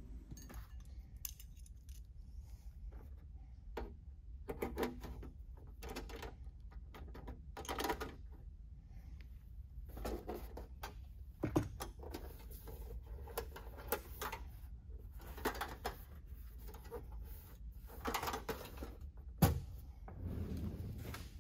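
Clecos being worked into an aluminium rudder's skin with cleco pliers: scattered small metallic clicks and clinks, with the thin aluminium panel being handled. Two sharper knocks stand out, about halfway and near the end.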